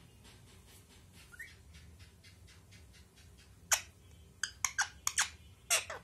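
Rose-ringed parakeet giving short, sharp calls: one loud call about halfway in, then a quick run of half a dozen more and another near the end.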